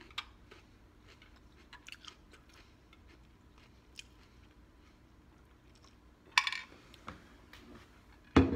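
Close mouth sounds of chewing, and of sipping through the straw of a plastic tumbler. Faint small clicks, then two louder knocks near the end.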